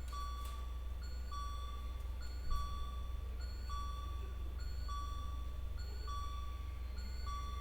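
Two-tone chime from a Patlite stairway speaker, the older type of chime, repeating endlessly about once a second. Each cycle is a short higher note falling to a longer lower one, over a steady low hum. A brief knock comes about two and a half seconds in.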